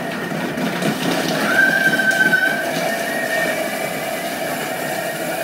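Bimby (Thermomix) kitchen processor running, its blades blending cooked pumpkin, dark chocolate chunks and oil: a loud, steady motor whine with churning, and a higher whine about a second and a half in.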